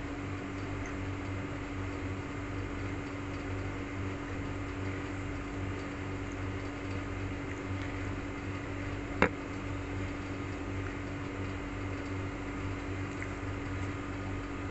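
Steady low mechanical hum from a running room appliance, with one sharp click about nine seconds in.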